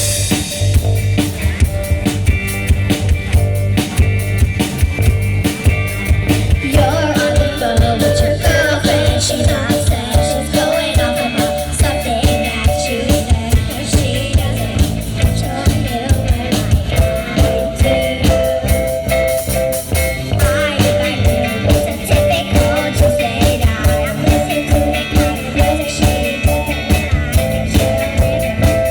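Rock band playing live: drum kit keeping a steady beat with guitar, bass and keyboard, and vocals coming in about seven seconds in.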